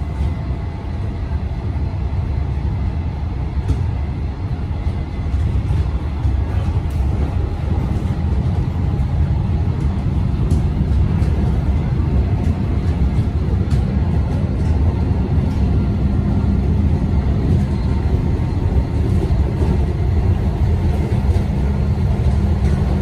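Melbourne Metro suburban electric train running, a steady low rumble, with a faint high tone during the first few seconds.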